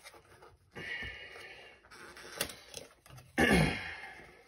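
Cardboard shipping box being opened by hand, with rustling and handling of the packaging and a click about two and a half seconds in. About three and a half seconds in comes the loudest sound, a short burst with a falling, voice-like pitch.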